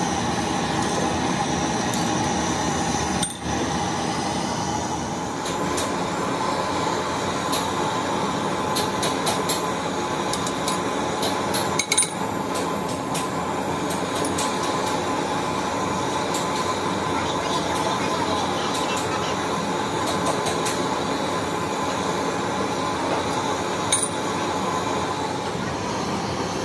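Steady roar and hiss of a gas torch flame heating a pan of molten lead, with a few light metal clinks from the tools and cast lead pieces, the clearest about halfway through and near the end.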